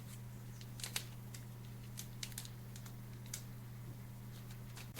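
Faint, scattered small clicks and taps of small electronic parts and circuit boards being handled, over a steady low hum.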